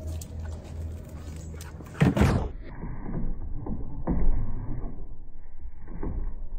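Dog landing on a raised plastic dog cot: a loud thump and scrabble about two seconds in, then lighter knocks and paw scuffs as it moves about and jumps up.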